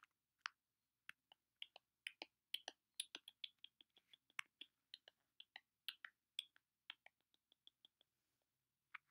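Faint, irregular clicking of computer keys: a couple of dozen short sharp clicks over about seven seconds, then one more near the end.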